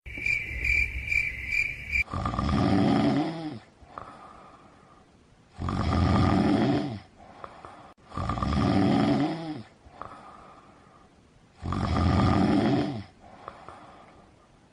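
Loud snoring: a long, rasping snore about every three seconds, with a quieter breath out between snores. It opens with about two seconds of high, rapidly pulsing chirping like crickets, which cuts off suddenly.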